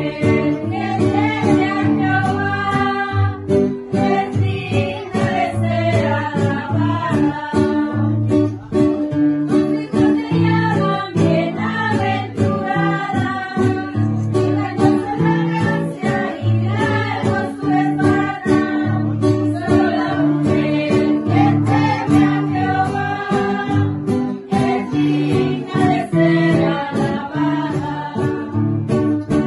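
Women singing a song together to two strummed acoustic guitars.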